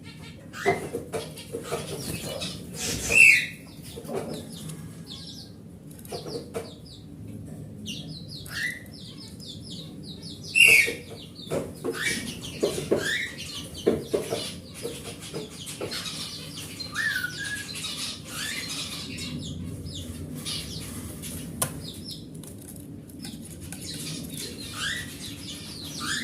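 Oriental magpie-robin (kacer) calling: scattered short whistled notes and chirps, some sliding in pitch, with two louder calls about 3 and 11 seconds in, amid scattered clicks.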